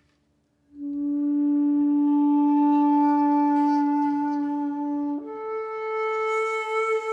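Background music: one long, steady low note with rich overtones, stepping up to a higher held note about five seconds in.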